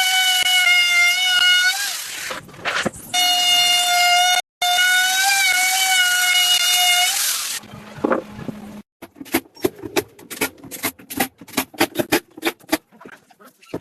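A woodworking power tool running with a steady high whine over loud hiss, in two stretches of a few seconds with a short break between. About nine seconds in, a quick irregular series of sharp knocks and taps takes over.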